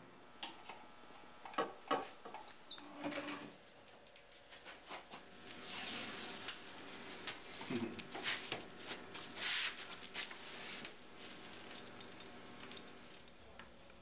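Irregular clicks, taps and short scraping or rubbing sounds of hand work on a workbench, with the sharpest clicks in a cluster near the start and two longer scrapes in the middle.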